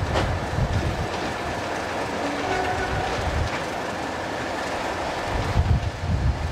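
Greater Anglia Stadler FLIRT Class 755 multiple unit running along the track as it moves away. Low gusts of wind buffet the microphone near the start and again near the end.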